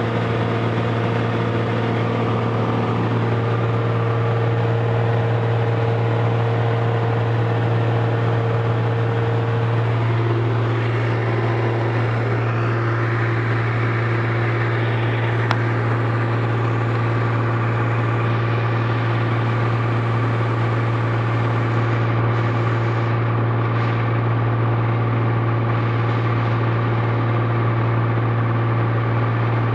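Cessna 182S's Lycoming IO-540 six-cylinder engine and propeller running at cruise power, about 2300 rpm, heard as a steady drone inside the cockpit.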